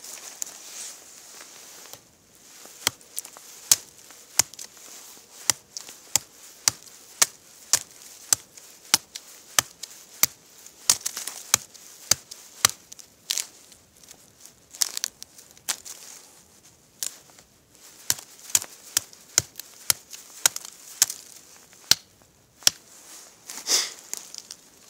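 Chopping into wood with a hand tool: a long run of sharp strikes, roughly one to two a second, with brief pauses between runs.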